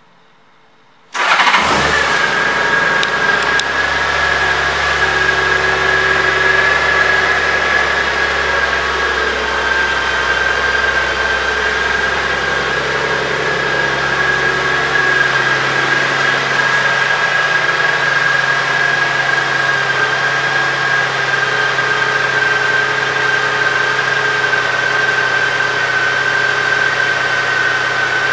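A 2005 Honda Gold Wing's 1.8-litre flat-six engine starts about a second in and settles into a steady idle, with a steady high whine over it. The deep low rumble drops away about halfway through.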